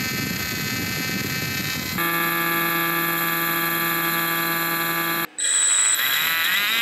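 Motor-driven 3D-printed centrifugal snail blower impeller spinning with a loud, steady whine of several tones. The whine breaks off briefly about five seconds in and returns rising in pitch as the impeller spins up. The loud noise is the sign, as the maker thinks, of the blades passing very close to a sharp edge of the housing.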